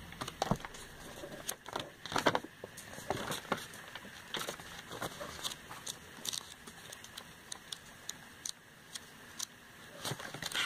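Glossy paper pages of a printed catalogue flipped and handled, a string of short crisp rustles and flicks, the loudest about two seconds in.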